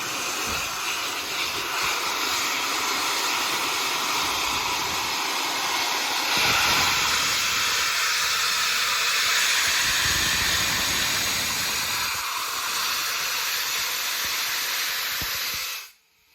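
Bulleid Battle of Britain class steam locomotive 34067 Tangmere blowing off steam: a loud, steady hiss typical of the safety valves lifting. It swells for a few seconds partway through, then cuts off suddenly near the end as the steam shuts off.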